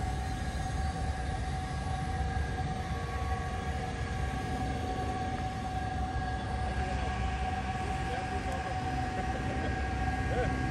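Historic SBB electric locomotive running: a steady hum over a low rumble, with the noise growing a little stronger about two-thirds of the way through.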